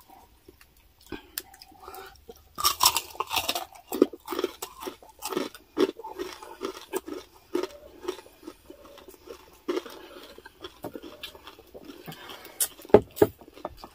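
Close-miked crunching and chewing of crispy deep-fried pork belly (chicharon bagnet), with a denser run of crunches about three seconds in. A few sharp clicks come near the end.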